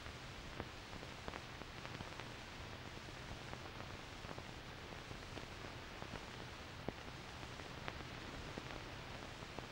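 Faint steady hiss with a low mains-type hum and scattered clicks and pops: the empty optical soundtrack of an old 16 mm film playing on after the narration has ended.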